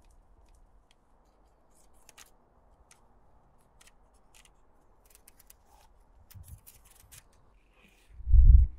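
Utility knife cutting through fiberglass reinforcing mesh: a scattered series of faint, crisp ticks as the strands part. Near the end a short low rumble, the loudest sound.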